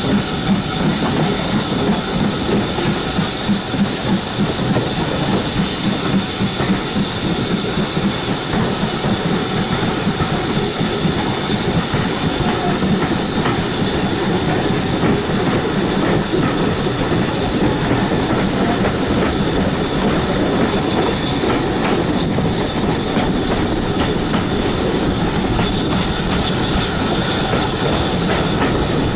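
Steam-hauled train behind BR Standard class 4 tank 80002 running along the line, heard from an open carriage window: a steady noise of wheels on the rails with a clickety-clack over the rail joints.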